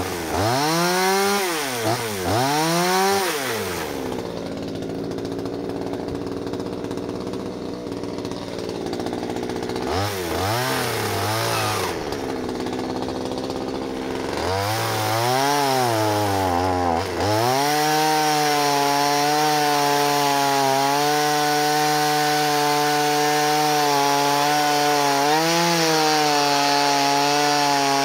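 Two-stroke pruning chainsaw revved up and down several times, falling back to idle in between. From about 17 seconds in it is held steady at high revs, cutting wood.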